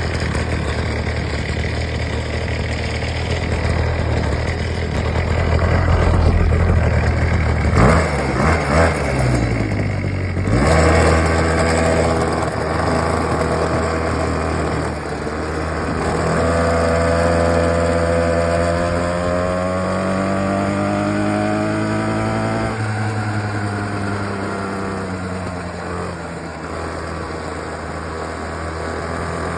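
Tiny 49cc two-stroke minibike engine running, blipped with a few quick revs about eight seconds in, then pulling the bike along with its pitch climbing and dropping as the throttle is opened and eased.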